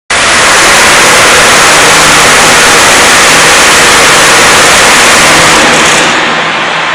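Blastrac 365 floor milling machine running, a loud dense grinding noise. About six seconds in it drops a little and loses its highest hiss.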